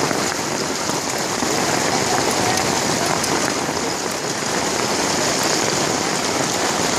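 Marble-sized hail and heavy rain pelting down in a dense, steady hiss, with scattered sharp ticks of hailstones striking.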